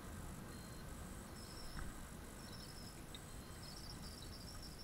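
Steady low wind and road rumble from an electric scooter rolling along a street, with faint high-pitched chirping that comes and goes, longest near the end.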